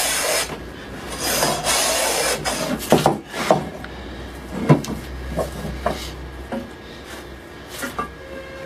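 Hand plane shaving a board: two long strokes in the first two and a half seconds, then a few knocks and scattered light clicks.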